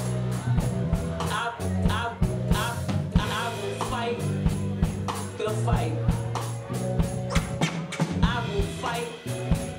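Live band playing: a drum kit keeps a fast, steady beat of about four hits a second under sustained electric bass notes and keyboards, with a voice riding over the top.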